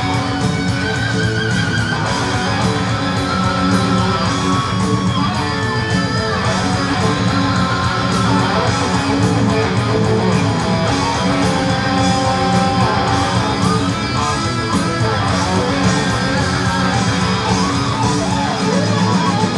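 Guitar-driven rock music playing over the end credits.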